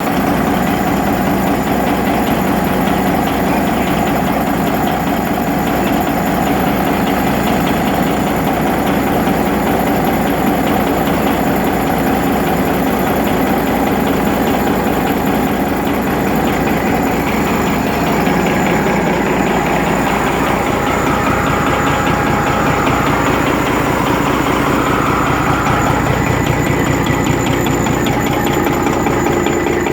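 Rebuilt Detroit Diesel Series 60 inline-six diesel engine idling steadily, with a knock from an injector that was adjusted at a lower rate.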